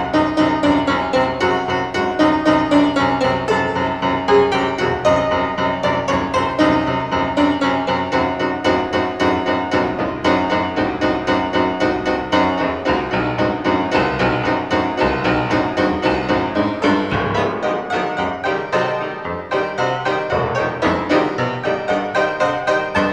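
Solo piano playing a fast, busy stream of notes, with a brief dip in loudness near the end.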